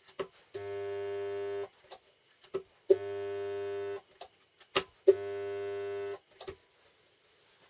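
Homemade spot welder's transformer humming in three timed pulses of about a second each, as the weld current passes through a metal strip held between the copper electrodes. Sharp clicks come before and between the pulses.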